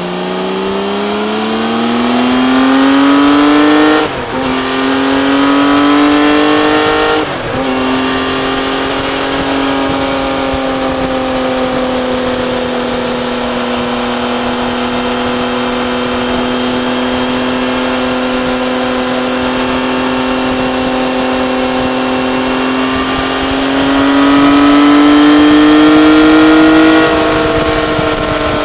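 Honda CBX1000's air-cooled inline-six through a modified Marving 6-into-2 exhaust, heard from the bike while riding. It pulls up through two gear changes in the first eight seconds, holds steady revs for a long stretch, then rises again and eases off near the end.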